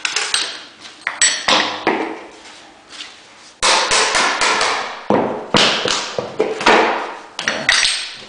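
Hammer striking about nine times at uneven intervals, each blow followed by a short noisy tail, as a baseboard is knocked loose from the wall.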